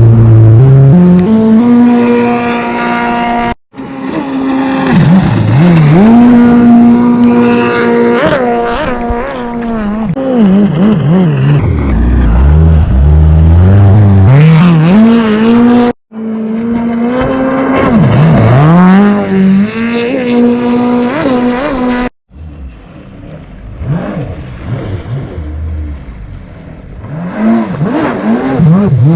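Kommander GP1 stand-up jet ski engine under throttle. Its pitch climbs steeply as it accelerates, holds steady at speed, then drops and climbs again several times. The sound cuts off abruptly three times, and after the last break it runs quieter before climbing again near the end.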